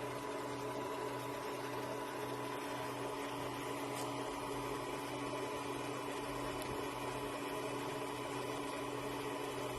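Steady machine hum with a few constant tones over a light hiss, like a fan or small motor running.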